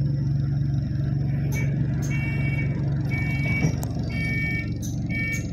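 Inside a moving bus: the engine's steady low drone. From about two seconds in comes a repeated electronic beeping, in half-second bursts about once a second.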